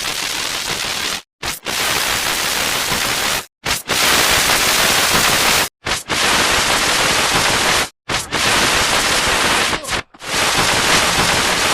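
Loud, harsh static hiss in blocks of about two seconds, each broken off by a sudden brief silence before the next begins.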